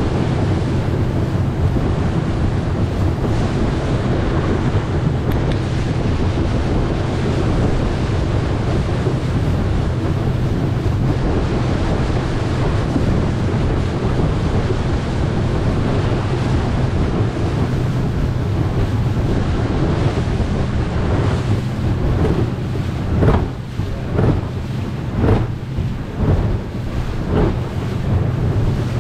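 Motorboat running, with a steady engine hum under wind buffeting the microphone and water rushing past the hull. Near the end comes a run of slaps about a second apart.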